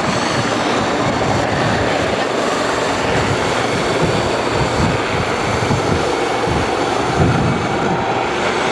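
Two Westland Lynx helicopters flying a close formation display overhead: steady rotor and engine noise with an uneven low thudding from the rotor blades.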